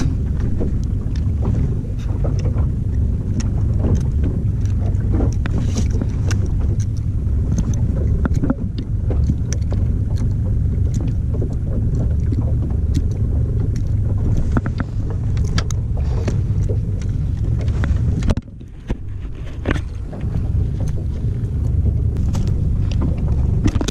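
Wind buffeting a GoPro microphone on a small boat at sea: a steady low rumble, with scattered small clicks and knocks from handling the fishing line and gear. The rumble drops off suddenly about eighteen seconds in, then returns.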